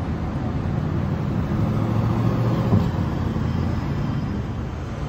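C8 Corvette's V8 accelerating past and away, its exhaust note rising to a peak nearly three seconds in with a brief break, then running steadier as the car pulls off.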